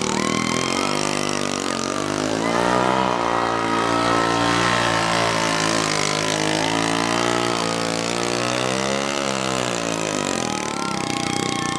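A small scooter engine is revved hard and held at high revs for several seconds. Its pitch climbs over the first couple of seconds, wavers, and falls away near the end.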